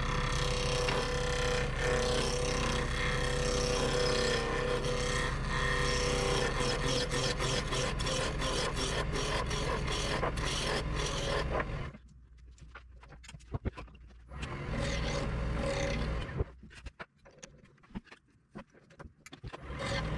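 Wood lathe spinning a black walnut and epoxy duck-call blank while a roughing gouge cuts it round: a steady scraping cut over the motor's hum. About twelve seconds in it drops away suddenly, leaving quieter, short bursts of cutting.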